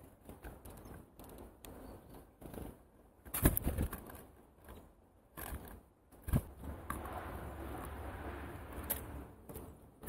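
Small birds landing and feeding on a wooden tray feeder heaped with sunflower seeds: irregular taps, pecks and rustling of seed husks, with brief wing flutters. The loudest knocks come about three and a half and about six seconds in, and a steady rushing noise sets in after that.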